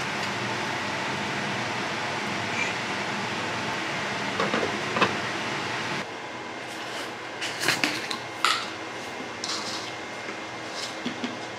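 Steady hiss of spinach cooking in a frying pan over a gas flame, with a few taps from a seasoning shaker. It stops suddenly about six seconds in, giving way to a string of plastic clicks and knocks as a protein powder tub is opened and handled beside a bowl on a kitchen scale.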